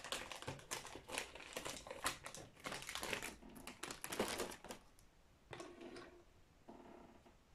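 Thin plastic polybag crinkling and crackling as it is handled, a quick irregular run of crackles that dies away about five seconds in.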